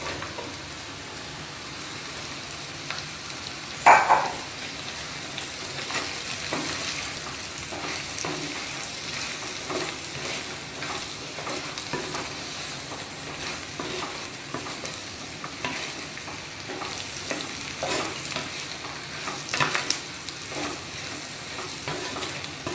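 Sliced ridge gourd added to shallots, coconut and spices frying in oil, then stirred with a wooden spatula: steady sizzling with a loud knock about four seconds in and scraping strokes of the spatula against the pot later on.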